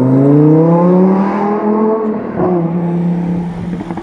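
Lamborghini Huracán's V10 engine accelerating hard away, its pitch climbing for about two seconds, then a gear change about two and a half seconds in and steadier running after it.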